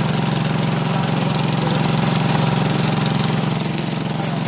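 Economy Power King 1314 garden tractor's engine running steadily while the tractor pushes snow with its front plow.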